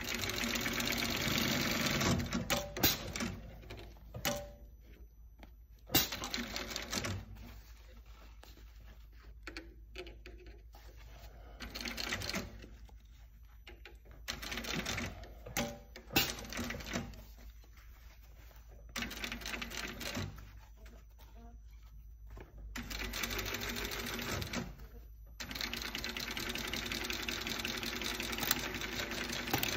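Industrial sewing machine stitching a new palm onto a hockey glove in short stop-and-go runs, each from under a second to a few seconds long, with pauses between as the glove is repositioned. The longest run comes near the end.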